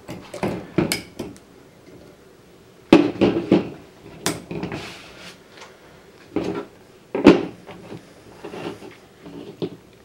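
Knipex snap ring pliers and a chrome ratchet clinking and tapping against each other and the table as the tools are handled and set down. The clicks come in scattered bunches, the sharpest about three and seven seconds in.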